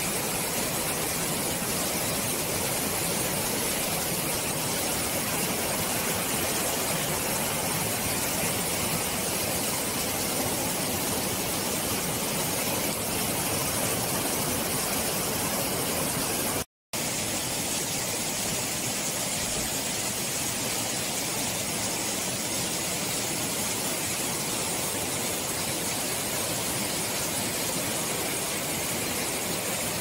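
Stream water rushing: a steady, even roar of flowing water that breaks off for an instant about halfway through, then carries on.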